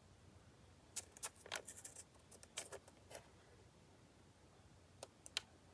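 Faint, light clicks and taps of a small strip of manila file-folder card being handled on the craft table: a quick cluster in the first half, then a few more near the end.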